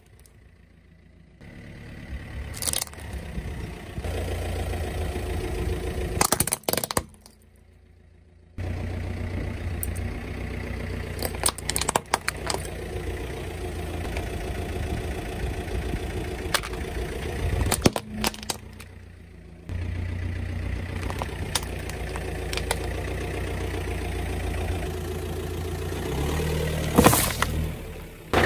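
A car engine running slowly, with its tyre rolling over asphalt. Several sharp cracks and crunches break in as the tyre crushes small plastic objects.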